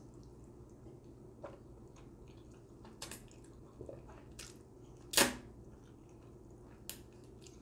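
Close-miked eating sounds: a person slurping in spaghetti strands and chewing, with short wet smacks and clicks. The loudest is a longer wet sound about five seconds in, over a steady low hum.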